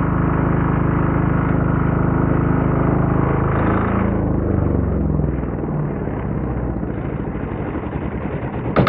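Wen D6000 generator's single-cylinder diesel engine running steadily, then dropping in speed about four seconds in and settling into a slower, pulsing beat. There is a sharp clatter near the end.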